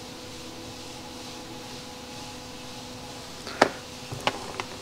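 Small parts and tools handled on a workbench: one sharp click about three and a half seconds in, then a few lighter clicks, over a steady background hum.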